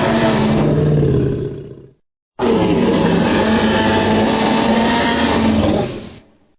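Stock dinosaur roar sound effect: the tail of one long roar fades out, and after a short silence a second long roar starts and fades away near the end.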